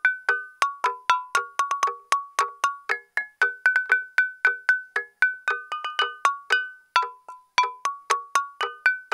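Stone lithophone (đàn đá) made of stream stones being struck to play a quick melody: sharp, bright ringing notes, about three strikes a second, each dying away quickly and stepping among a few pitches.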